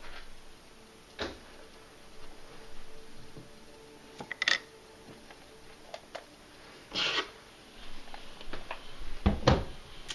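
Scattered light knocks, taps and brief rubbing sounds of small objects being handled, with a louder knock near the end.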